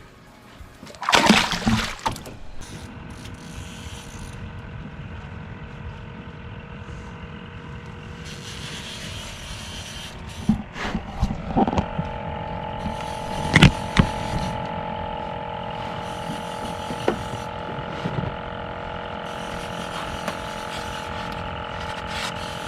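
A motorboat engine running steadily, its drone growing slowly louder about halfway through. A splash comes about a second in, and there are a few sharp knocks in the middle.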